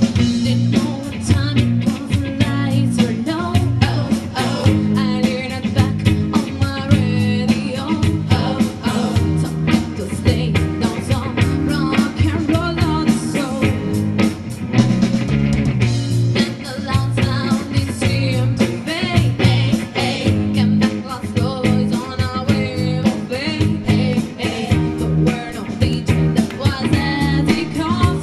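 Live rock band playing a song: a woman sings the lead through a microphone over electric guitar, bass and a drum kit.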